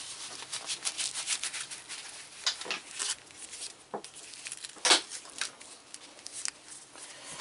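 Fabric rustling and rubbing as a new textile motorcycle glove is handled and pulled onto a hand: a string of short scratchy rustles, the loudest about five seconds in.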